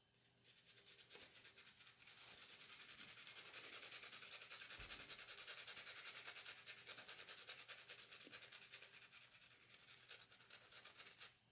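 Faint, fast scraping of a scratch-off ticket's coating being scratched away, steady for several seconds and stopping abruptly near the end.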